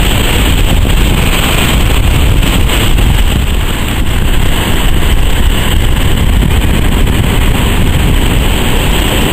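Wind buffeting the microphone over heavy surf breaking and washing in, a loud steady rush with a brief dip about four seconds in.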